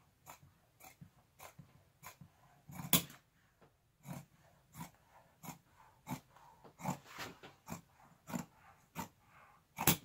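Large scissors cutting through a sheet of faux leather, each close of the blades a short crunching snip, about one to two a second. The loudest snips come about three seconds in and at the very end.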